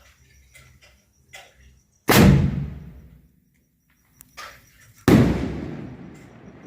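Two firecracker bangs about three seconds apart, each loud and sudden and dying away over about a second.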